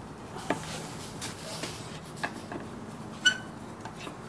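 Scattered metallic clicks and taps of a socket wrench and extension working the muffler bracket bolts, with one sharper, ringing clink of metal on metal about three seconds in.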